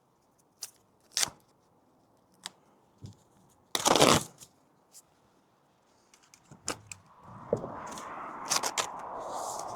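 Sticky flashing tape being handled: scattered clicks and crackles, with one short tearing sound about four seconds in. A steady hiss-like noise sets in about seven seconds in.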